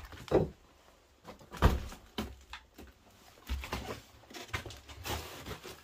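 Footsteps climbing a staircase: a string of irregular thuds and knocks, the loudest about two seconds in.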